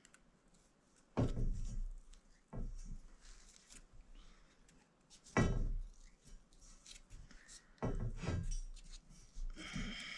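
Galvanized pipe and fittings being handled: about five sudden knocks, the loudest about one and five seconds in, some with a short metallic ring, and scraping, squeaky rubs in between and near the end.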